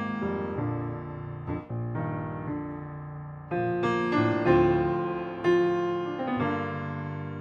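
Solo piano playing slow sustained chords, growing louder a little past halfway.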